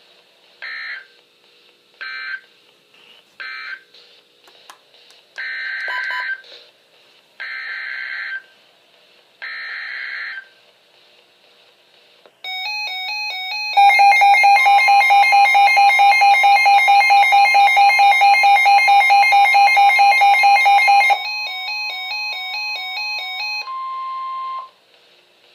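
NOAA Weather Radio emergency alert sequence: three short buzzing end-of-message data bursts, then three longer buzzing SAME header bursts announcing the next winter storm warning. These are followed by a loud, rapidly pulsing electronic alarm for about seven seconds and a steady single-pitch warning alarm tone that stops shortly before the end.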